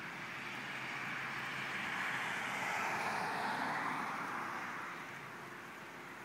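A car passing by: its road noise swells to a peak about three seconds in, then fades away.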